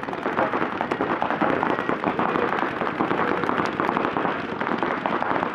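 Many paintball markers firing rapid streams of shots at once, a dense, unbroken crackle of pops.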